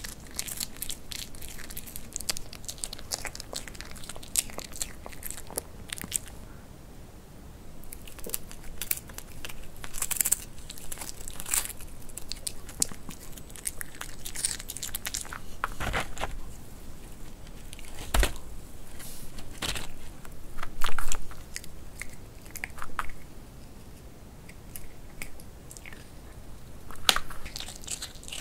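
A Pomeranian crunching and chewing dried vegetable chips: an irregular run of sharp crunches with short pauses, briefly quieter about seven seconds in, loudest a little past two-thirds through.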